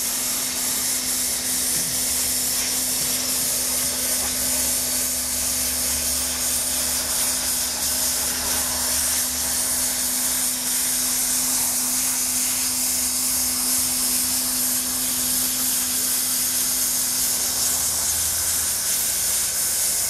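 Hand-held hot-air plastic welder running continuously, blowing a steady hiss with a constant low motor hum underneath, while TPO roofing membrane is heat-welded to a flashing base.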